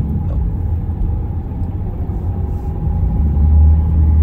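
Steady low rumble of a car being driven, its road and engine noise.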